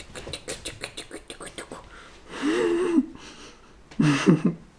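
A person's wordless mouth sounds: a quick run of soft clicks for about two seconds, then two short voiced sounds, the first rising and falling in pitch.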